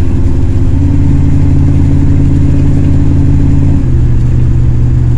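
1978 Ford Mustang's engine running steadily under way, its carburetor freshly repaired. The drone drops a step in pitch about four seconds in.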